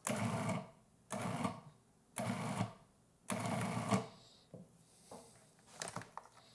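Food processor with its metal chopping blade pulsed four times, each pulse a short burst of motor whirring about a second apart, chopping chicken with mayonnaise. Near the end come a few light plastic clicks as the lid is handled.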